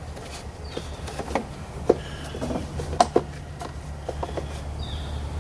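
Scattered light clicks and taps, about eight or nine of them at uneven intervals, from parts being handled and fitted while the tractor's PTO switch is put back on, over a steady low hum.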